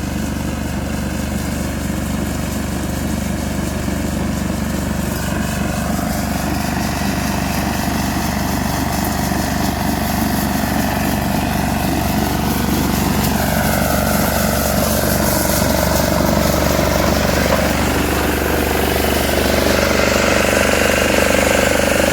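Small Bullet mini tractor's engine running steadily under load while cutting a soybean crop, with some rising and falling pitch changes in the middle and getting a little louder near the end.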